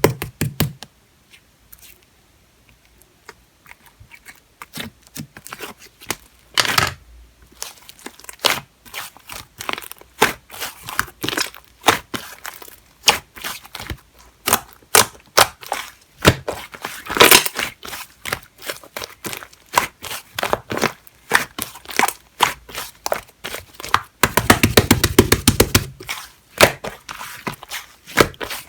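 Soft clay slime being squished and pressed by hand, giving a string of sharp sticky clicks and pops that start sparse and grow busier. About three-quarters of the way through comes a fast run of rapid clicks lasting about two seconds.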